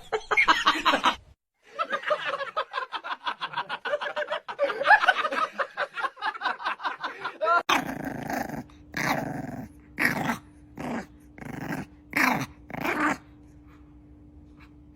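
A dog growling in rapid pulses mixed with yips. Then, from about eight seconds in, a dog gives about seven separate short calls over a faint steady hum.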